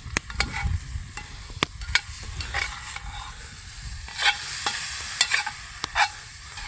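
Wallaby meat browning in a frying pan: a steady sizzle, with irregular clacks and scrapes of a utensil stirring it.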